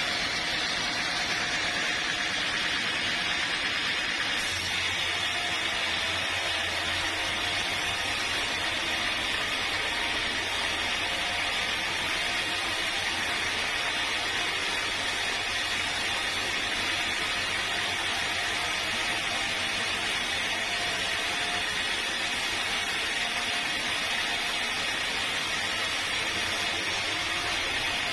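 Steady machine noise of a sawmill at work, a continuous hiss-like running sound. A low hum joins about four seconds in and holds to the end.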